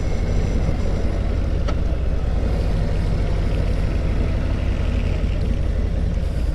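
Harley-Davidson Road Glide's V-twin engine running steadily while riding, a continuous low rumble with road noise.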